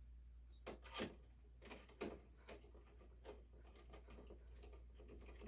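Faint, irregular rubbing and scraping strokes with a few light knocks, as PC cooler parts are handled on the workbench.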